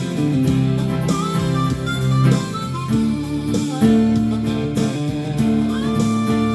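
Instrumental music led by guitar: plucked notes over held low tones, with a couple of notes sliding up in pitch.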